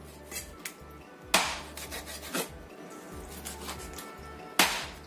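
Steel cleaver chopping raw chicken on a wooden cutting board: a few separate heavy chops, the loudest about a second and a half in and near the end, with lighter knocks between. Background music plays underneath.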